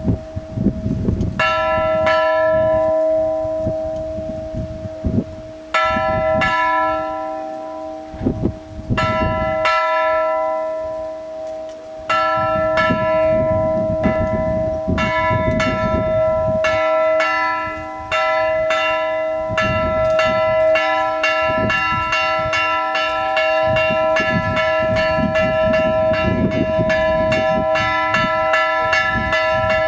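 Church bells of a Greek village church rung by hand in free, improvised chiming. First come four single strokes a few seconds apart, each left to ring on. From about halfway the strokes quicken into a fast, busy peal of several strokes a second.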